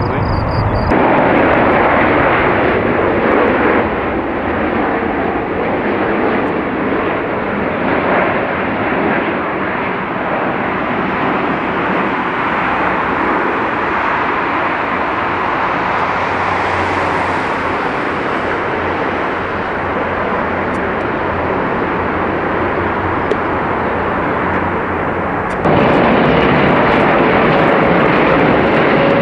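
Heavy jet airliners on landing approach: loud, steady jet engine noise, with abrupt changes about a second in and near the end where one plane's sound gives way to another's.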